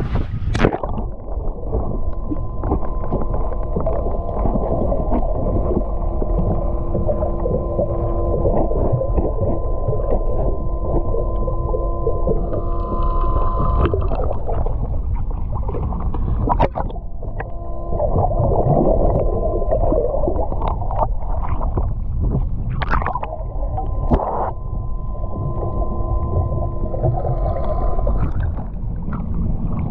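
Motorboat engine running under way: a steady droning hum over low rumbling water and wind noise. The hum drops away for a few seconds about halfway through and again near the end.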